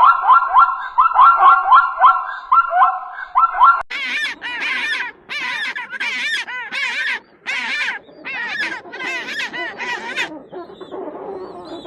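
Animal calls: a quick run of short, repeated calls, then from about four seconds in a series of about ten louder calls, each rising and falling in pitch, which stop about ten seconds in.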